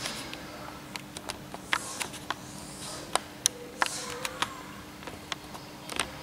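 Needle and thread being worked through cloth stretched in an embroidery hoop: irregular small clicks and brief rustles as the thread is drawn through the fabric, over a faint steady hum.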